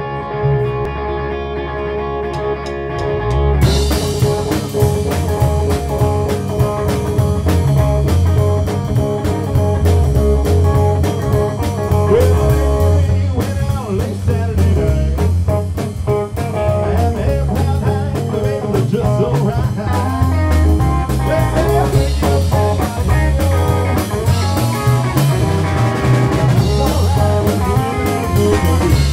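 Live rock band playing: an electric guitar rings out sustained notes, then the drums and bass guitar come in with the full band about three and a half seconds in and keep a steady beat.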